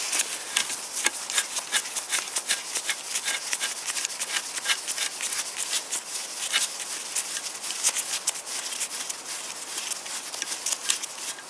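Socket ratchet clicking in rapid, uneven runs as it undoes a 10 mm nut holding the oil dipstick tube to a Toyota VVT-i engine block.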